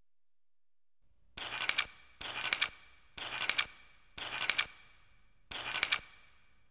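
Wire being snipped with cutters: five short scraping snips, each with sharp clicks, roughly a second apart.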